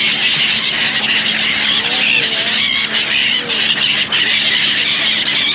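A large flock of birds calling all at once, a dense, continuous shrill chatter, with a steady low hum underneath.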